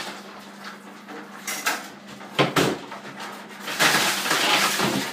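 Ice water and ice cubes splashing and clattering in a tiled shower stall in several noisy bursts, the longest starting a little under four seconds in, as a soaked man shakes off the dumped ice bucket's contents.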